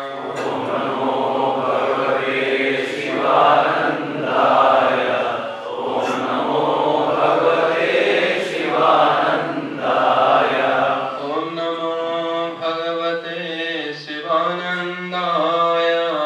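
Group of voices chanting a Sanskrit mantra in unison, with long held notes that shift in pitch.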